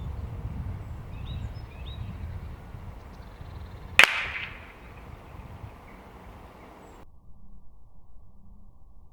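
A single shot from an Air Arms S510 sub-12 PCP air rifle about four seconds in: a sharp crack with a short ringing tail. Before it there is a low rumble and a few faint bird chirps.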